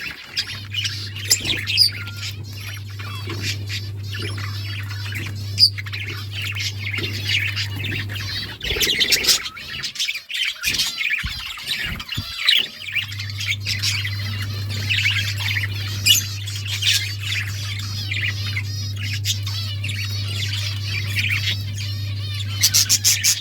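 Several pet budgerigars chattering together in a constant, wavering warble full of chirps and squawks. A steady low hum runs under them, breaking off for about four seconds in the middle.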